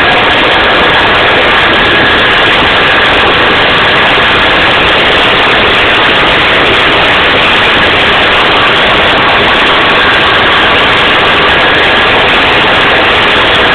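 SKOT armoured personnel carrier's air-cooled Tatra V8 diesel engine and running gear, heard on board while driving. The sound is loud and steady throughout.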